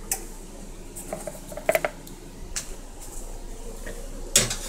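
Clatter of a cupcake baking pan being handled at the oven: a few light metallic clinks, then a louder knock near the end.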